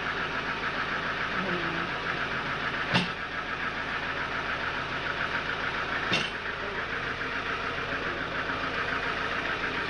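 Sawmill machinery running steadily, with two sharp knocks about three seconds apart.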